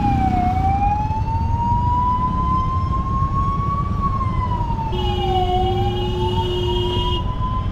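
Emergency vehicle siren wailing slowly, its pitch dipping and climbing back about every five seconds, over a low rumble of road traffic. A vehicle horn sounds for about two seconds past the middle.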